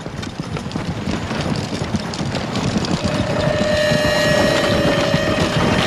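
Rumble of a horse-drawn wagon bearing down at speed, hooves and wheels growing steadily louder; a steady high held note joins about three seconds in.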